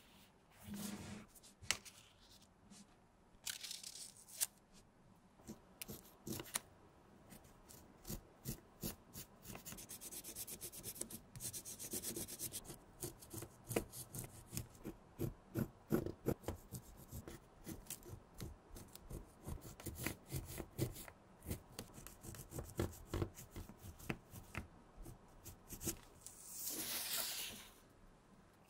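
Pencil scratching on soft leather as a flower outline is traced around paper templates: a dense run of short, quick strokes, with a few longer swishes of the leather and paper being moved at the start and near the end.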